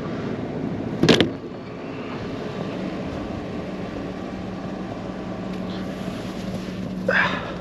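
Work truck's engine idling steadily with a low hum, and a single sharp knock about a second in.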